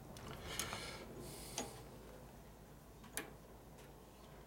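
Three faint, sharp clicks of small metal hardware, a bolt and washers being fitted by hand at a brake master cylinder mount.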